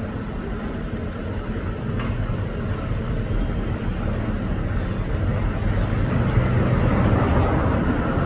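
A steady low rumble, like a running vehicle or train, growing a little louder in the second half.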